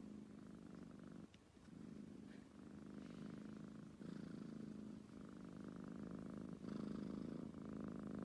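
Tabby cat purring softly while being stroked on the head, a contented purr. It goes in stretches of about a second, with short breaks between them as the cat breathes.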